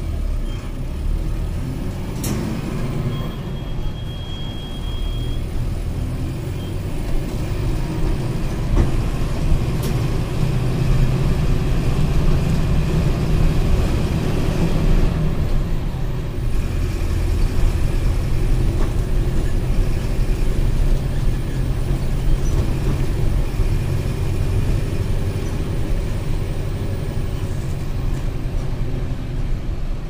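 MWM 4.12 TCE four-cylinder turbodiesel of a Volkswagen 15-190 EOD city bus running under way. It grows louder from about ten seconds in, as under acceleration, then settles.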